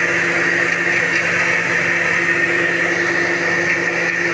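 Electric blender running steadily at full speed, blending a strawberry milkshake.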